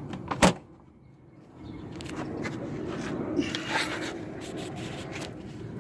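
A sharp click about half a second in, then light rubbing and scraping of hands working on car parts over a steady low hum.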